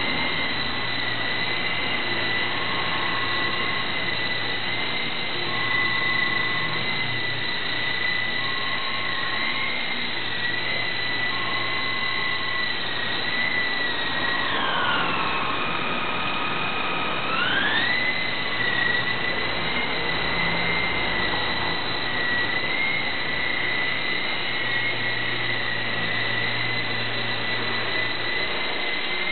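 Small electric RC helicopter in hover: a steady high-pitched whine from its motors and rotors. About halfway through the pitch drops sharply as the throttle is eased, holds lower for about three seconds, then climbs back. A faint short tone repeats about every three seconds in the first half.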